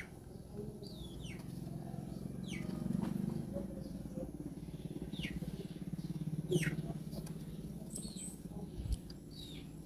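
Background farmyard birds: a low murmur of chickens clucking, with short high chirps that fall in pitch every second or two.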